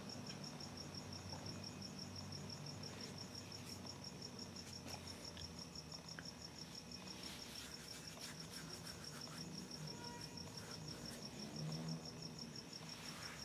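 Crickets chirping: a steady, high, rapidly pulsing trill that goes on without a break, over a faint low hum.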